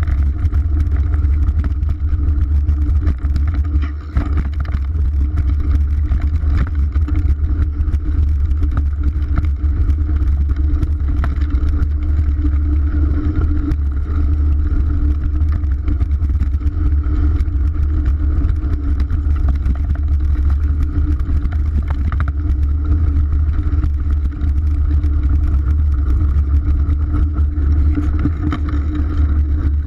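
Mountain bike ridden down a dirt singletrack, heard through a chest-mounted GoPro: a loud, steady low rumble of wind and tyres, with many small clicks and knocks from the bike rattling over the rough trail.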